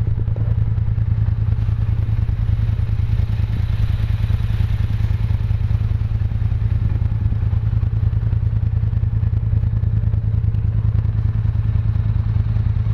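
Off-road vehicle engine running steadily as it rides a dirt trail, a low, even drone that does not change much in pitch.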